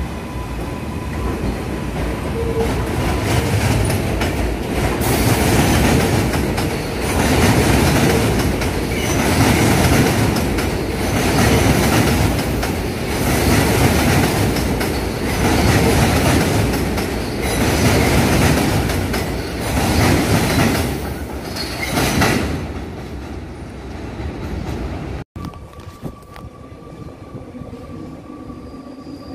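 A New York City subway train runs slowly along elevated track, with the rhythmic clatter of its wheels over the rail joints swelling about every two seconds. The clatter fades after about 22 seconds. After a brief break near the end, only a faint, steady, high wheel whine remains.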